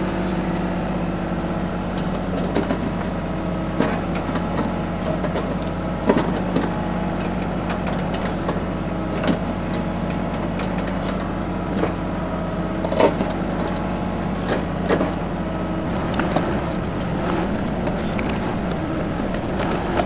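TYM 2515H compact tractor's diesel engine running steadily while its backhoe digs, with a few sharp knocks and scrapes from the bucket working the ground.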